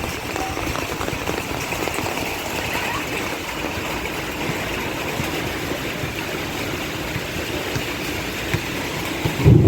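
Steady rain falling, with a sudden low rumble of thunder breaking in near the end.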